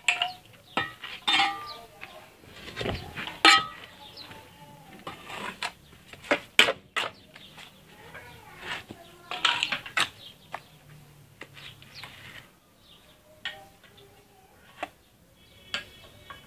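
Steel mason's trowel scraping up and spreading cement mortar on clay bricks, with repeated sharp scrapes and knocks of metal on brick and mortar.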